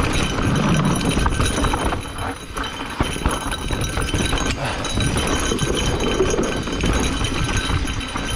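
Specialized Turbo Levo electric mountain bike riding downhill over rough, rocky trail: a continuous clatter of tyres over rocks and roots, with the bike's chain and frame rattling in dense, irregular knocks.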